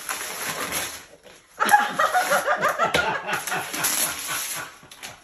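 Wrapping paper rustling and tearing as a gift is unwrapped, with a burst of laughter over it from about a second and a half in.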